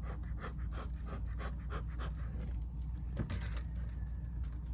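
Rapid rhythmic panting, about four breaths a second, that stops about two and a half seconds in; a brief sharp rustle or knock follows a little later.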